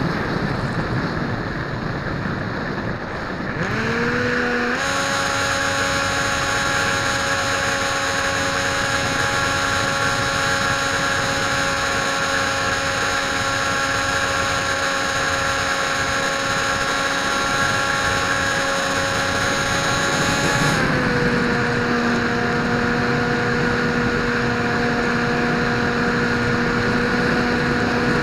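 RC airplane's electric motor and propeller whining in flight over a steady hiss. The pitch sits low at first, climbs quickly a few seconds in as the throttle is opened, holds steady, then drops to a lower steady pitch about two-thirds of the way through as the throttle is eased back.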